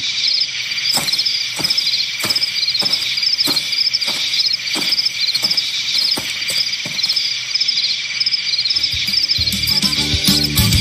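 Crickets chirping in a steady, evenly repeating pulse, with a slow series of soft taps a little under twice a second through most of it. Low music comes in near the end.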